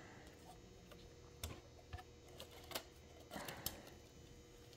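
Faint, scattered clicks and light rattles of small plastic wire connectors and cables being worked loose by hand inside a defibrillator's opened plastic housing, with a short cluster of clicks about three and a half seconds in.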